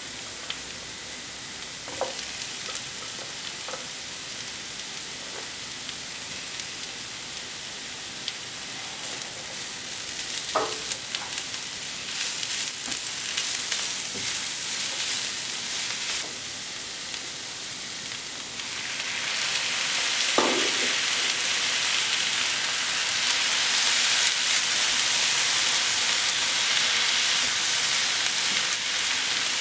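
Sliced onion, grated carrot and chopped vegetables sizzling in a nonstick frying pan as they are stirred with a spatula. The sizzle grows louder about two-thirds of the way in, with a few soft knocks along the way.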